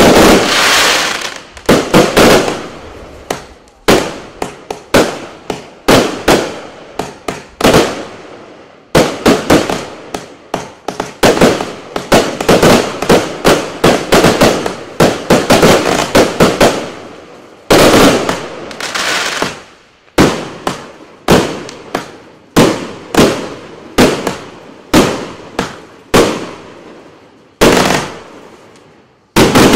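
Klasek Pyrotechnology 2020 204-shot firework cake firing its 20, 25 and 30 mm tubes in quick runs of shots and bursts, several a second. There are brief lulls about eighteen seconds in and near the end.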